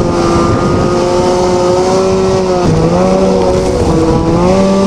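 Snowmobile engine running hard at speed across a frozen lake, a steady high-revving tone that dips in pitch about halfway through and climbs again near the end.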